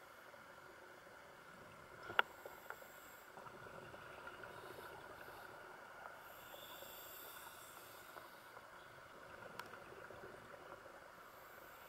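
Faint, muffled underwater ambience heard through a dive camera housing: a steady hiss with a scuba diver's regulator breathing coming and going. There is a sharp click about two seconds in, the loudest sound, with another just after it and one more later.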